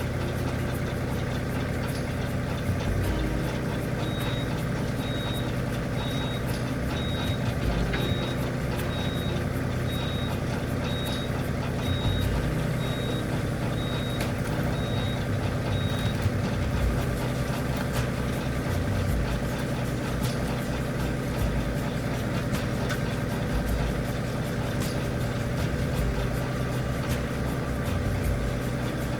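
An engine running steadily at an even pitch. A high, regular beeping like a reversing alarm, about one and a half beeps a second, starts a few seconds in and stops just past the middle.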